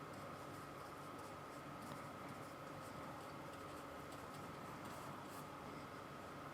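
Paintbrush bristles dabbing and scrubbing acrylic paint onto the painting: faint, irregular scratchy strokes.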